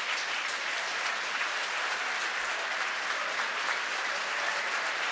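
Crowd applauding and cheering steadily.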